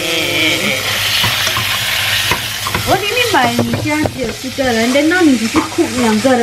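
Food frying and sizzling in a pan while it is stirred. From about three seconds in a woman's voice comes in over it, rising and falling in pitch.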